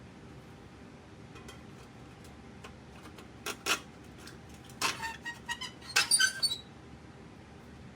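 Metal tools and axle hardware clinking together: two sharp clinks, then a quick run of clinks with short metallic ringing.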